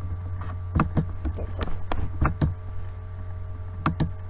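Steady low electrical hum from the recording setup, with a run of short sharp clicks and knocks: computer mouse clicks, a cluster starting about a second in and two more near the end.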